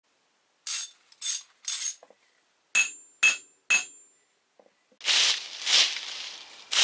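Six short, sharp sounds in two groups of three, the second group ringing briefly. About five seconds in, a leaf rake starts scraping through dry fallen leaves in regular strokes, more than one a second.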